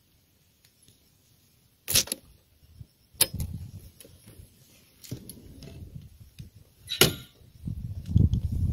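Camera handling noise: a few sharp knocks and rubbing as the handheld camera is moved, then a low rumble building near the end.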